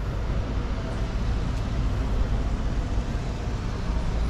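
Steady city street traffic noise: a continuous rumble of vehicles, with no single event standing out.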